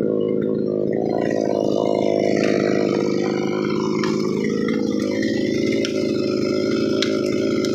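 Two-stroke chainsaw engine running steadily at idle after a cut, with a few faint clicks.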